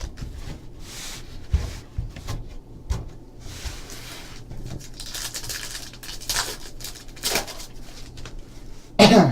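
Trading cards and foil pack wrappers being handled: rustling and crinkling with scattered light taps and knocks, over a faint steady hum.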